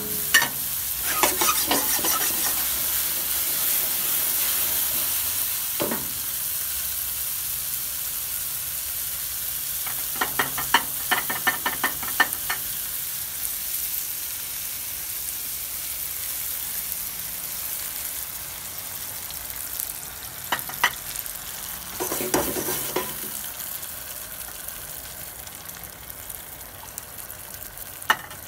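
Chicken pieces and peppers sizzling in a hot frying pan, with a few bouts of metal tongs clicking and scraping against the pan as the food is turned. The sizzle grows quieter over the second half as coconut milk is poured into the pan.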